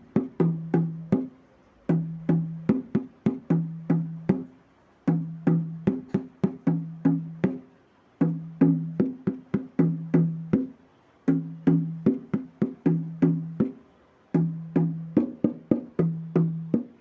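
Dholak being played by hand: a repeating phrase of quick strokes mixing low, ringing bass-head strokes with higher, sharper treble-head strokes. The phrase starts again about every three seconds after a short pause.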